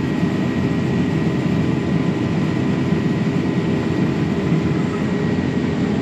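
John Deere combine running steadily while harvesting soybeans, heard inside the cab: a dense, even drone of engine and threshing machinery with a faint steady whine on top.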